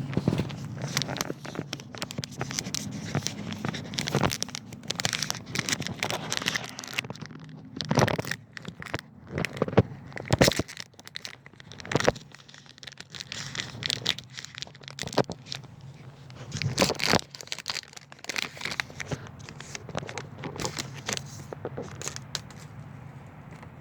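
Trading-card packaging being opened by hand: plastic and paper wrappers crinkling and tearing, with irregular crackles and sharper snaps a few times along the way.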